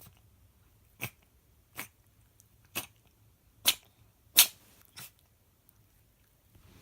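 A cat sneezing six times in quick succession, short sharp sneezes under a second apart, the fourth and fifth loudest.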